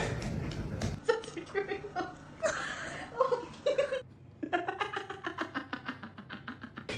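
Music, with a person laughing in quick repeated bursts in the second half.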